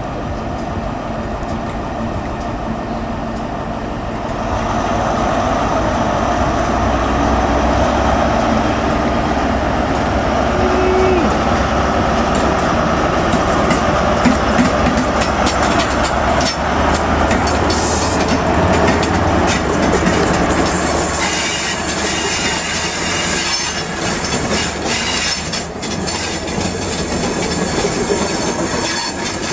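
Class 43 HST power car diesel engine running steadily as the train moves past, joined by the rumble of carriages on the rails. About two-thirds of the way through, higher-pitched wheel-on-rail noise with clicks comes in.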